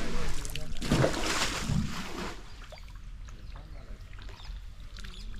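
Water splashing and sloshing in two heavy bursts in the first two seconds, then only faint scattered splashes and drips.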